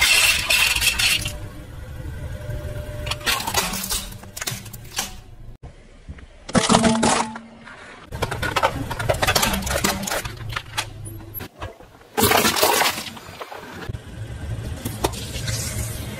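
Things being crushed under a car tyre one after another: sharp cracking and crunching of plastic every few seconds, over the low running of the car's engine. Near the start, coins clatter as they are poured into a bowl.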